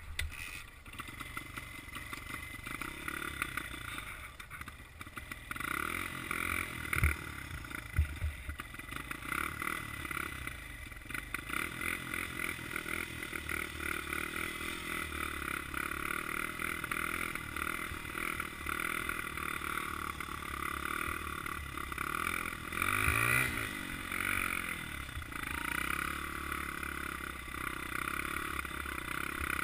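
Honda CRF100F dirt bike's small air-cooled four-stroke single-cylinder engine running while ridden, its note rising and falling with the throttle, with a rev change a little after twenty seconds in. Two sharp thumps come about seven and eight seconds in.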